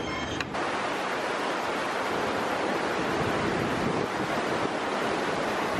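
Floodwater rushing past a mill's water wheel: the swollen river running fast as white water in a steady, loud rush. The rush begins suddenly about half a second in.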